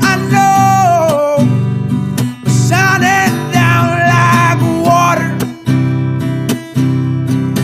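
A male voice singing a song over a strummed acoustic guitar; the voice drops out about five seconds in, leaving the guitar strumming on its own.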